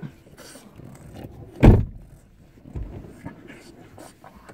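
A single heavy, dull thump about a second and a half in that dies away quickly, followed a second later by a fainter low thud.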